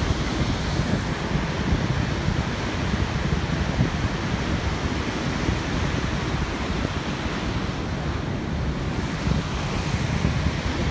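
Steady rush of water jetting from a dam outlet into the river far below, mixed with wind buffeting the microphone.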